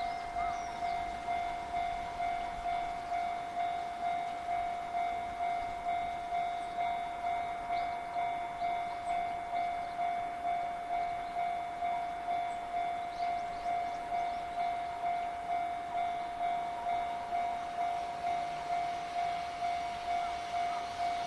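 Japanese railway level-crossing alarm ringing: a steady electronic ding repeating evenly a little under twice a second, the warning that a train is approaching and the crossing is closed.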